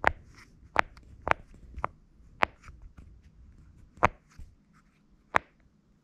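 Silicone push-pop fidget toy, its bubbles pressed through by a finger one at a time: about seven sharp pops at uneven intervals, roughly a second apart.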